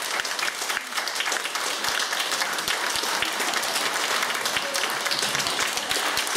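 A small crowd of people applauding, many hand claps overlapping.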